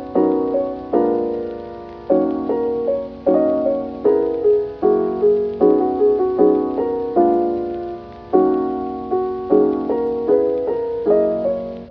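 Background music: a gentle piano piece with chords struck at a steady pace, each one decaying.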